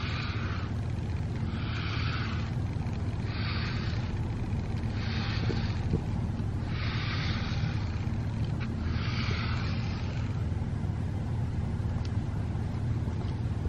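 A PetZoom grooming brush drawn through a cat's fur in regular strokes: a soft scratchy swish about every one and a half to two seconds, over a steady low hum.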